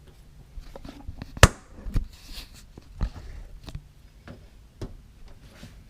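Clicks and clunks of a car's hood being released and opened, with one sharp clack about a second and a half in and a few lighter knocks after it.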